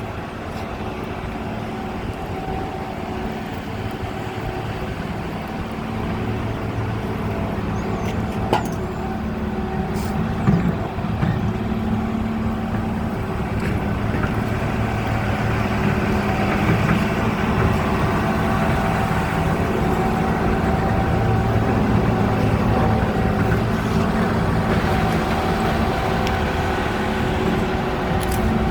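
A motor running steadily with a pitched hum while rust inhibitor is sprayed onto the machine. A hiss grows louder about halfway through. There is a sharp click and a knock about a third of the way in.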